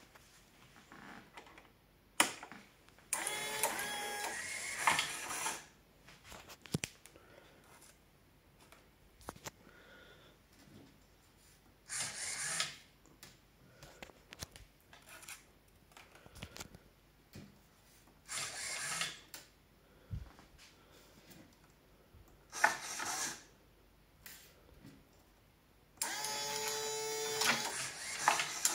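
Automatic cigarette-filling machine (a converted Powermatic 3 Plus) working through its cycle. Its motors run with a whine in short bursts every few seconds, with sharp clicks and pauses between them, and a longer run near the end.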